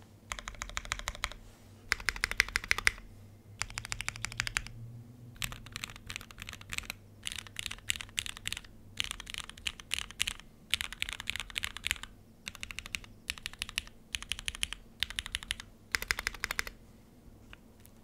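Typing on a Moment custom mechanical keyboard with retooled Cherry MX Black linear switches, a polypropylene plate and GMK keycaps: runs of rapid keystrokes, each a second or so long, with short pauses between them.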